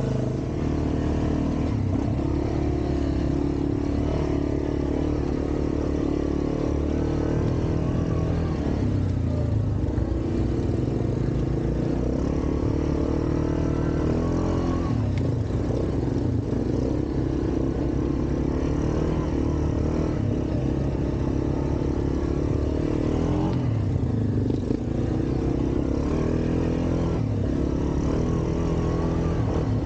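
ATV engine running as the quad is ridden along a trail, its pitch rising and falling with changes of throttle.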